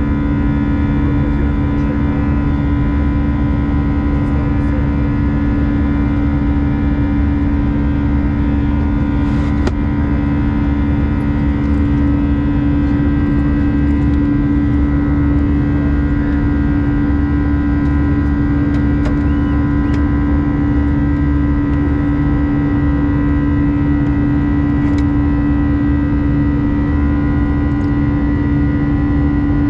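Airbus A320 cabin noise during the climb: a steady rush of engine and airflow noise with a strong low drone and several fainter steady tones, unchanging throughout.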